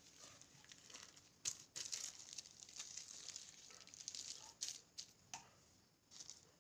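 Faint crinkling and rustling of a thin plastic sheet in irregular short crackles as a slab of peanut burfi resting on it is handled and set down on the counter.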